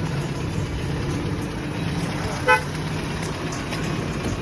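Bus engine running steadily on the road, with a vehicle horn giving one short toot about two and a half seconds in.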